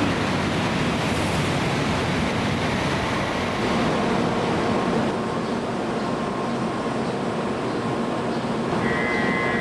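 Tokaido Shinkansen train passing through the station at high speed: a loud, steady rush of wind and running noise, with a high-pitched tone joining near the end.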